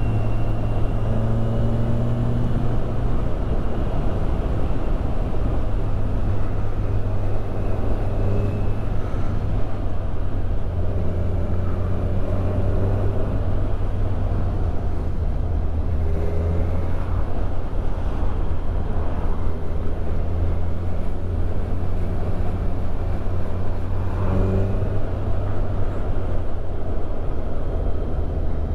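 Kawasaki Ninja 1000SX's inline-four engine running at low revs on the move, heard from the rider's position. The engine note shifts in pitch a few times as the throttle changes, over steady wind and road noise.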